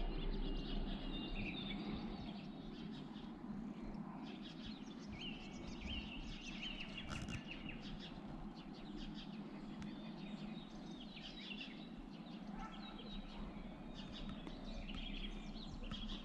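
Small birds chirping and twittering, faint and scattered, over a steady low background hum.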